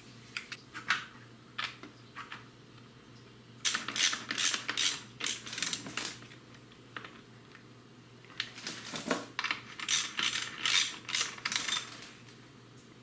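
Socket ratchet clicking as the front brake caliper's mounting bolts are run in and tightened: a few scattered clicks, then two spells of rapid ratcheting, one about three and a half seconds in and another about eight and a half seconds in.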